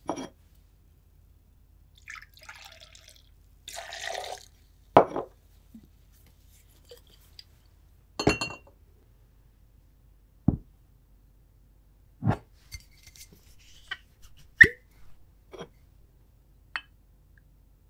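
Rum poured into a glass mixing glass over cucumber slices, then a string of separate knocks and clinks as glass, bottle and a steel jigger are handled and set down on a wooden counter, a few of them ringing briefly.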